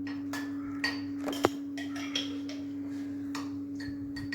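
A steady one-pitch electrical hum, with a few light clicks and taps of a spoon against a mug as pizza sauce is spread, the sharpest about a second and a half in.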